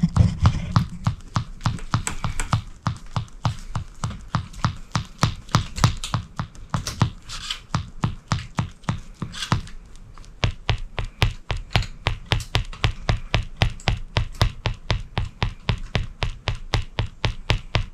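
Shoes stepping on a hardwood floor, a rapid series of sharp footstep clicks. The steps are uneven at first, then settle into a steady pace of about three to four a second about ten seconds in.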